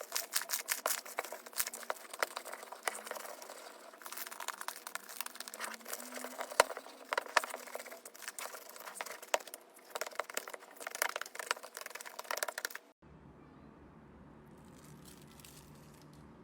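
Slime being squeezed and worked by hand, giving dense crackling, popping and clicking. About 13 seconds in it cuts off abruptly to a quieter stretch with a low hum and a few faint clicks.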